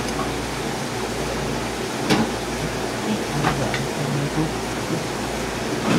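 Steady kitchen background noise, an even hiss over a low hum, with a few light clinks of utensils and plates as curry is dished up, about two and three and a half seconds in.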